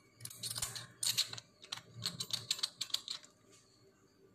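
Black pepper dispensed from a small handheld steel pepper shaker over bread cups: a quick, irregular run of small clicks and rattles that stops near the end.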